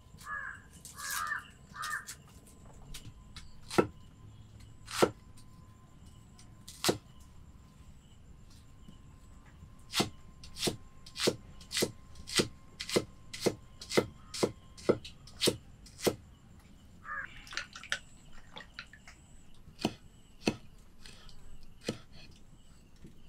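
Large steel kitchen knife chopping shallots and tomato on a wooden log chopping block: scattered knocks, then a steady run of about two chops a second, then a few more spaced-out chops. A crow caws briefly near the start and again later on.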